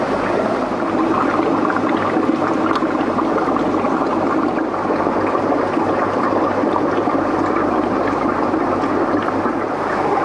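Steady rushing and gurgling of water from aquarium filtration and aeration.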